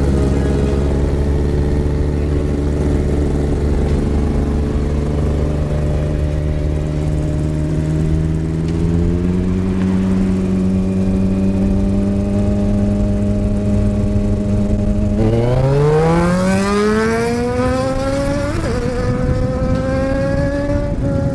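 Kawasaki Z1000 inline-four motorcycle engine and exhaust running steadily for a long stretch, then revving up hard with the pitch climbing steeply, a brief dip partway through the climb, and the climb continuing more slowly near the end.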